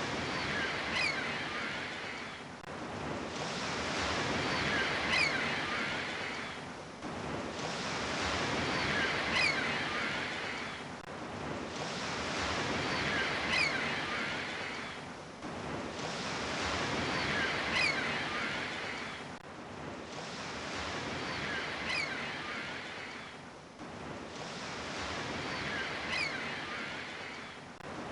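Ocean waves washing onto a shore in a steady rhythm, each surge swelling and falling away about every four seconds.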